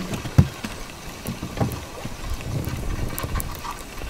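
Spinning reel being wound in on a lure retrieve, with a sharp knock about half a second in, over a low rumble and scattered small clicks.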